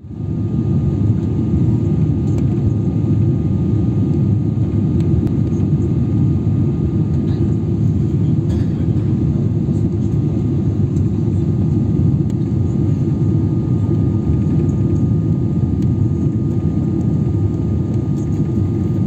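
Steady cabin noise inside a Boeing 777-300ER on approach to landing: a deep, even rush of airflow and its GE90 engines, with a thin steady whine above it and a few faint ticks.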